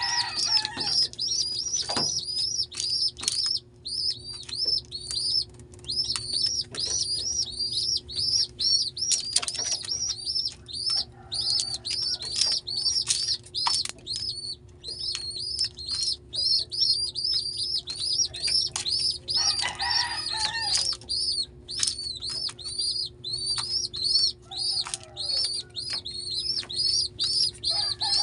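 Pigeon squabs in the nest begging with rapid, high-pitched peeps, about four a second and almost unbroken, while fluttering their wings: the begging call of young pigeons asking to be fed.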